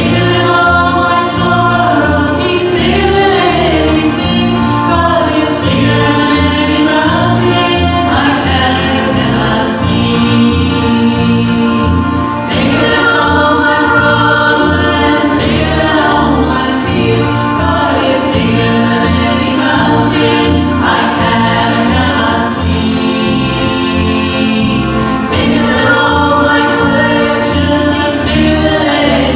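Gospel song sung by a small vocal group in harmony, with a steady low accompaniment underneath.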